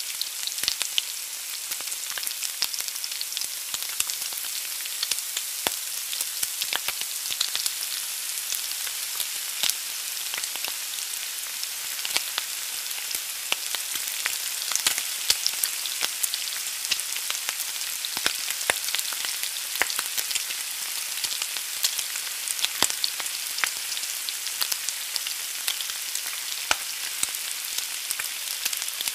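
An egg frying in hot fat: a steady sizzle with many small, sharp pops and crackles.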